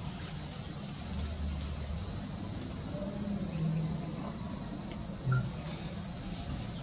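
Steady high-pitched chorus of insects droning without a break, with one short low thump about five seconds in.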